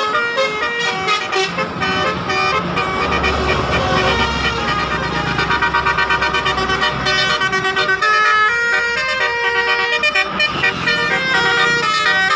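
Multi-tone Basuri "telolet" bus horn playing a tune of quick stepped notes, with a low engine rumble underneath in the middle.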